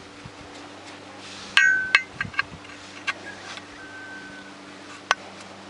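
Steel ball bearings clinking against metal while being handled: a sharp ringing clink about one and a half seconds in, a second clink just after, then a few lighter clicks, over a low steady hum.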